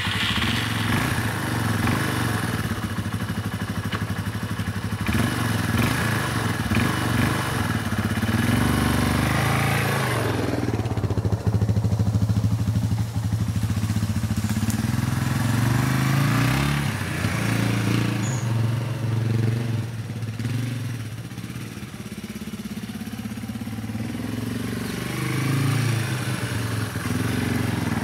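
Yamaha Serow 225WE trail bike's air-cooled single-cylinder four-stroke engine running under a rider, its pitch rising and falling with the throttle.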